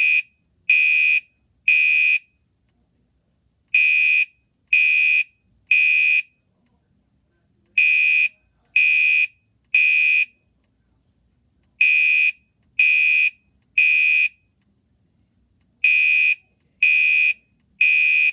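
Gentex Commander 3 fire alarm horn sounding the temporal-3 evacuation pattern: three short, shrill beeps about a second apart, then a pause, with the group repeating every four seconds.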